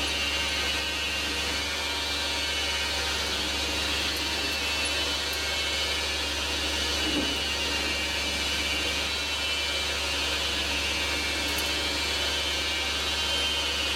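Manual metal lathe running steadily, a continuous machine noise that holds level throughout.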